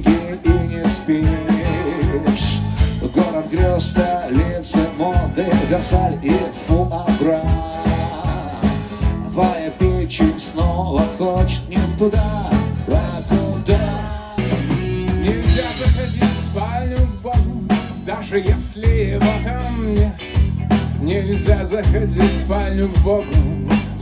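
Live rock band playing: drum kit keeping a steady beat under bass, electric guitars and keyboard, with a brief drop about fourteen seconds in before the band comes back in full.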